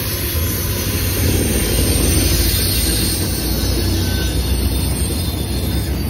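CSX freight train's coal hopper cars rolling past close by: a steady low rumble and rail noise from the wheels, with a MARC diesel locomotive running on the next track.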